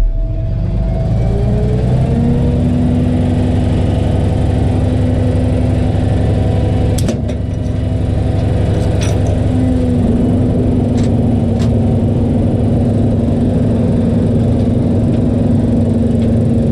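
Tow truck engine running, its pitch rising over the first two seconds and then holding steady, with a few faint clicks.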